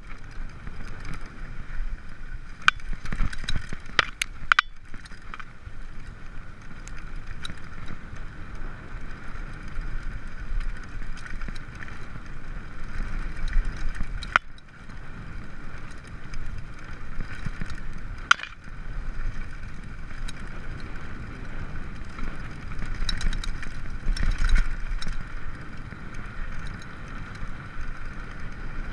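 Mountain bike rolling down a rough dirt singletrack: a steady rumble and rattle from the tyres and bike over the trail, with wind on the microphone. Sharp knocks from bumps come a few times, around 3 to 5 seconds in and again near 14 and 18 seconds.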